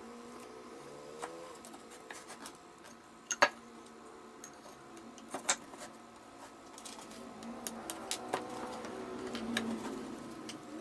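Wooden boards and small metal hardware being handled on a wooden workbench: scattered sharp clicks and knocks, the loudest a quick pair about three seconds in, then a few more near the end as the boards are set edge to edge. A faint steady hum lies underneath.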